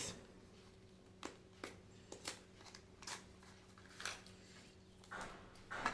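Swiss Army knives being handled, giving a few scattered light clicks and taps over a faint steady hum.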